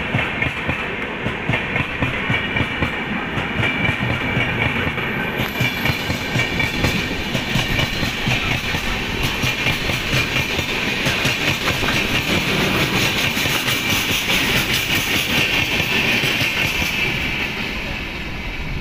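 Karnataka Sampark Kranti Superfast Express passing at speed without stopping: steady clatter of its coach wheels over the rails. The rushing sound grows louder and brighter about five seconds in and eases off near the end.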